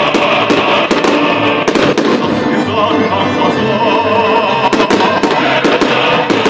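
Fireworks bursting in many sharp, irregular bangs, a few each second, over loud music.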